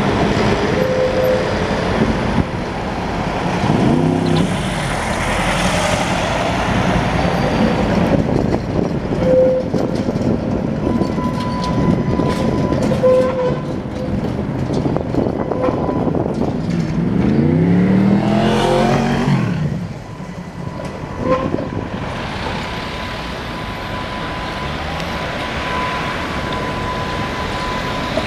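Tatra T3 trams rolling over street track through a curved junction: steady wheel-on-rail rumble with a few brief squeals, then a steady high squeal held through the second half. About 18 seconds in, a whine rises and falls in pitch over a couple of seconds, the loudest moment.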